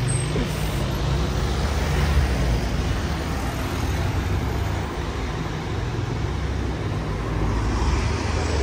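Steady street traffic: car engines running close by in a narrow street, with a low rumble.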